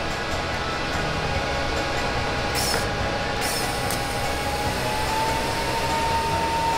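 Stick (arc) welding: the steady crackling hiss of the arc, flaring briefly twice in the middle, with a thin steady whine that rises slightly about five seconds in.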